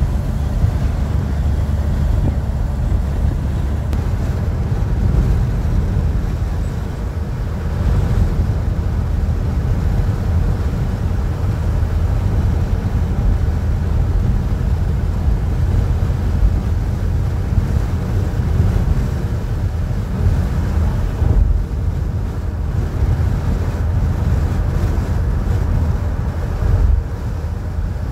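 Steady low rumble of a car's engine and tyres on the road, heard from inside the cabin while cruising on a motorway.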